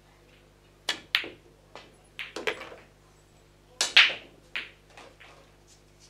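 Pool shot: the cue tip strikes the cue ball and, a quarter second later, the cue ball clacks into the object ball, followed by a cluster of rattling knocks as the ball drops into the pocket. About four seconds in comes the loudest sharp knock, then a few lighter clicks of billiard balls.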